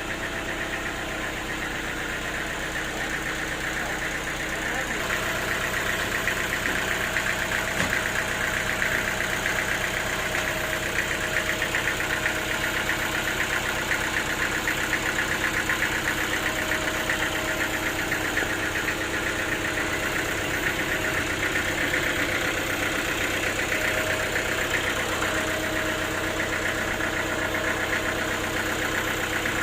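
Portable sawmill's engine running steadily, a little louder from about five seconds in.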